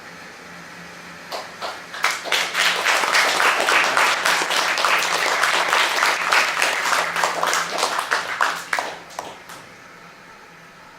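Audience applauding at a concert: a few claps about a second in, full applause for about seven seconds, then thinning out to scattered last claps.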